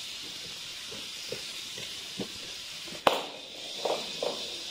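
Small battery-powered robotic cat toy running on a wooden floor: a steady high hiss with a few light ticks, then a sharp knock about three seconds in followed by two softer thumps.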